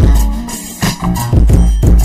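West Coast G-funk hip-hop music with heavily boosted bass: deep, loud bass notes under sharp drum hits about twice a second.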